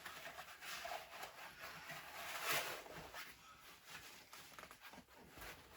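Cloth rustling and rubbing in faint, uneven swells as an animatronic's hand is worked through the sleeve of a costume dress, loudest about two and a half seconds in.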